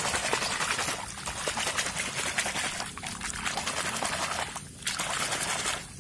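A hand vigorously swishing and scrubbing a small plastic toy car in shallow water, with continuous splashing and sloshing in several bouts and brief lulls about one, three and nearly five seconds in.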